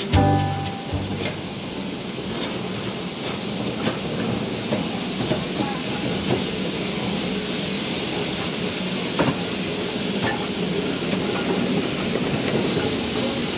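Small steam tank locomotive moving slowly alongside on the next track, with a steady hiss of steam and a few light knocks from its running gear and the rails. The tail of background music fades out in the first second.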